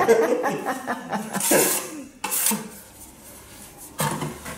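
A person laughing and chuckling for about two seconds, followed by a few short clinks and scrapes.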